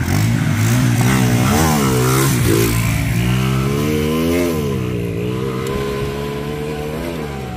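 Two street motorcycles launching from the start of a drag race and accelerating hard away, the engine pitch climbing and dropping several times as they rev through the gears. The sound fades over the last few seconds as they pull away.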